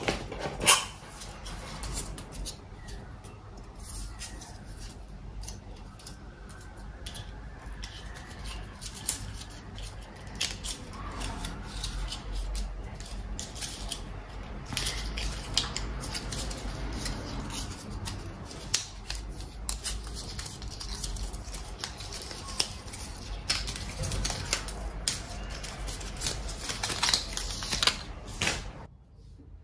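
Hands unpacking a power cord: the cable knocks against the cardboard box as it is lifted out, and the paper wrap is rustled and pulled off the coil, making many sharp clicks and crackles. The loudest click comes just under a second in.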